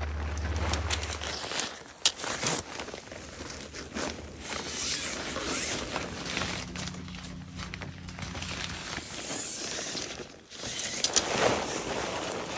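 Nylon tent fabric rustling and crinkling as a dome tent is pulled from its bag and spread out, with a few sharp clicks as the shock-corded tent poles are unfolded.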